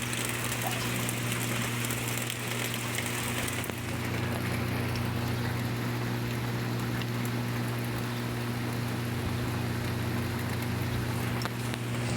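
Steady rain falling, with a steady low hum underneath.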